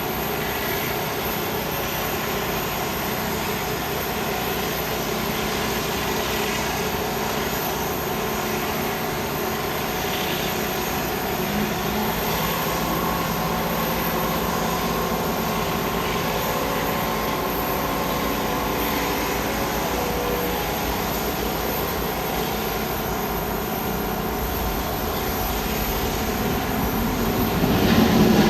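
Aircraft engines running steadily, with a constant whine of several steady tones over a broad rush, growing louder near the end.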